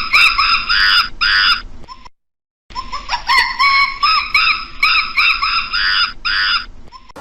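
A fowl calling a rapid series of short harsh notes, about eight in two seconds, ending in a couple of buzzy notes; the same call sequence sounds twice, broken by half a second of dead silence about two seconds in.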